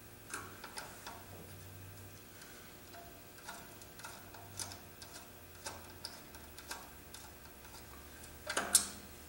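Scattered light clicks and taps of a screwdriver and small metal parts as overload heater elements are fitted and screwed into a magnetic starter's overload relay, with a louder clatter near the end. A faint low hum sits underneath.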